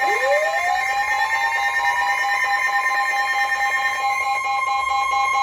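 Electronic alert tones opening a severe thunderstorm warning broadcast: several fast-pulsing beeps at different pitches sound together while another tone sweeps upward over about two seconds and then holds steady. One of the pulsing beeps drops out about four seconds in.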